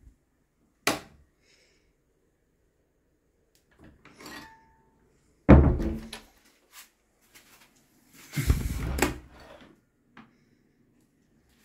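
Interior doors being handled: a sharp click about a second in, a loud thud about halfway through, and a longer rush of scraping noise near the end.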